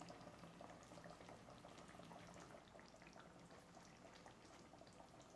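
Curry gravy simmering in a pan: faint, irregular bubbling with many small pops.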